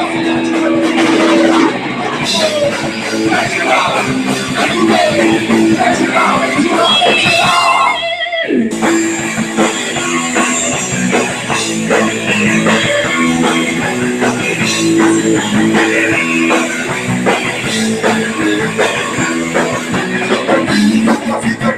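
Punk rock band playing live: electric guitar and drum kit, with singing.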